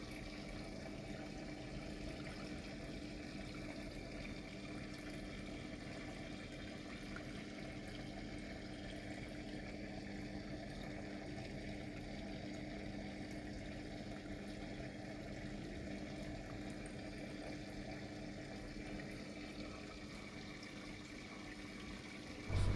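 Small aquarium filter running: steady water bubbling and trickling over a low hum.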